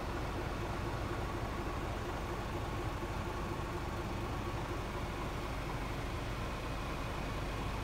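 Scania R450's 13-litre straight-six diesel idling steadily, heard from inside the cab.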